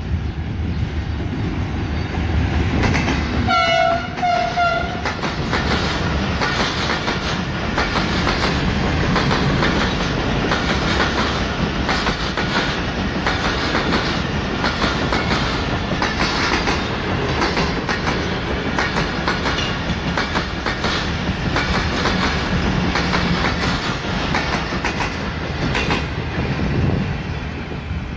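Passenger train led by a diesel locomotive running through at speed: two short horn blasts about four seconds in, then the coaches passing with a steady clickety-clack of wheels over rail joints, easing off near the end.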